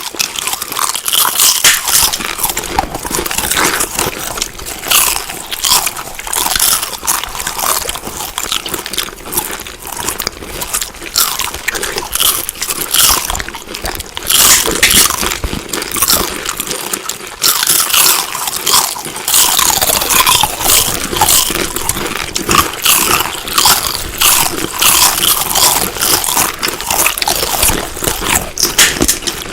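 Close-up crunchy chewing and biting of food: a continuous run of crisp, loud crunches one after another.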